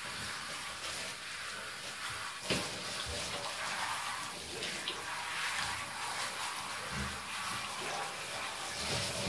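Handheld shower head spraying water over a wet cat's fur and into the bathtub, a steady hiss of running water. A sharp knock comes about two and a half seconds in.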